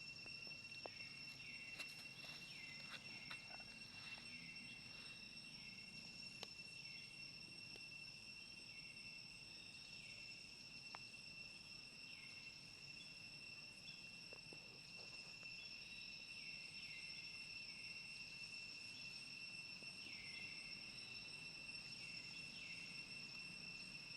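Faint, steady high-pitched insect drone, with short falling chirps repeating every second or two and a few soft clicks in the first few seconds.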